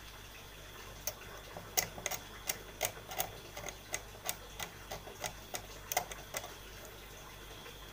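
Craft-knife blade scraping a circuit board's copper pad clean in short strokes, to bare it for soldering the charging-port terminal: a string of sharp ticks, about three a second, starting about a second in and stopping after about six seconds.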